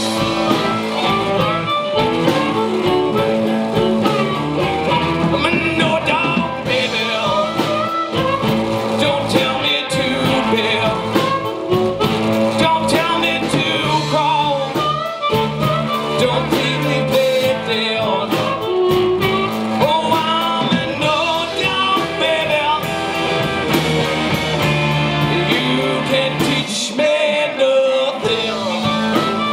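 Live blues band playing a mid-tempo number: electric guitars over drums, with a male lead vocal sung into the microphone.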